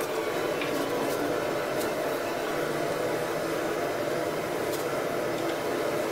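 A steady rushing noise like a running blower or burner, with a few faint clicks in the first two seconds.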